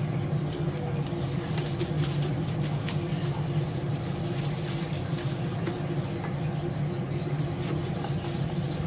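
Gloved hands rubbing marinade over a raw duck: soft wet rubbing and rustling of thin plastic gloves on the skin, over a steady low machine hum.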